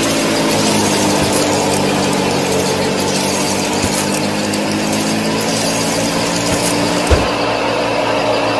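Small motor of a miniature model machine running steadily, a whine over a dense rattle, with a single knock about seven seconds in.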